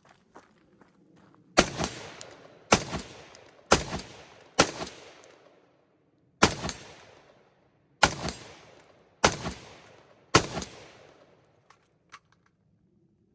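Rifle firing eight single shots at roughly one per second, with a short pause after the fourth. Each shot is followed by a fading echo.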